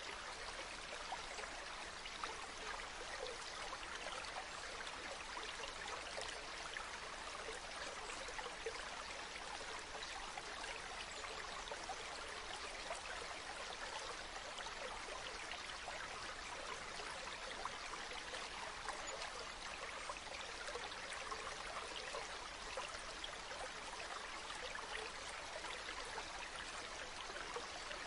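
Shallow water running over pebbles: a soft, steady trickle with tiny splashes scattered through it.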